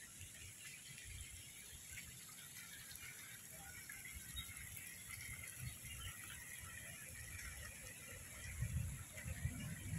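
Faint dusk ambience: a steady high-pitched chirring insect chorus, with a low rumble that grows louder near the end.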